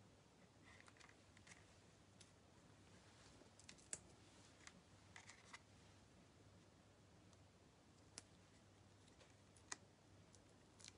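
Near silence with a faint low hum, broken by a dozen or so faint, scattered small clicks and a couple of brief soft rustles: hands handling paper card pieces and peeling and pressing foam adhesive dimensionals.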